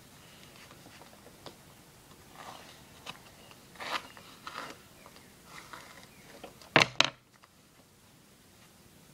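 A comb and hands working through a doll's hair: scattered soft scraping and rustling strokes, with two sharp knocks in quick succession about seven seconds in, the loudest sounds here.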